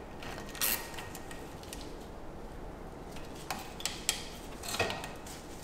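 A few scattered light metallic clicks and clinks as a loose brake caliper is handled and tied up to the strut with a cable tie.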